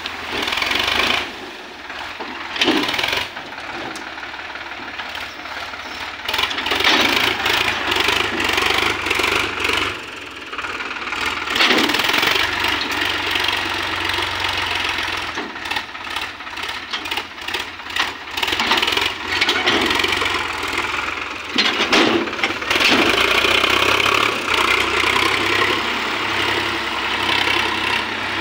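Sonalika Sikandar 50 tractor's diesel engine working under load as it pulls a tipped trailer through soft ground, the revs and loudness surging up and down.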